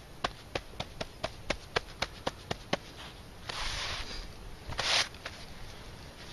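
Gloved hand patting out smouldering shredded cedar bark on a rock, about four quick pats a second, then two brushing sweeps as the ash is swept off the stone.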